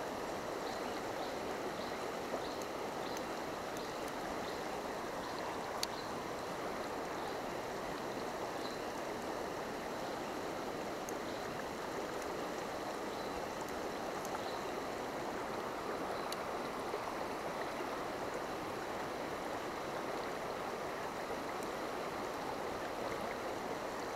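Shallow, fast river running steadily over rocks and around boulders: an even rushing of water.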